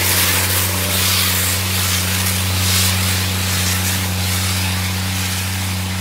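Tractor and McHale round baler running steadily through the hay, a constant low engine drone at one unchanging pitch under a broad hiss of machinery.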